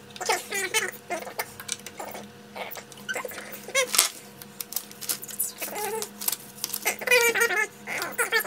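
Repeated short, high squeaks and chirps from a small animal, rising and falling in pitch, over a steady low hum.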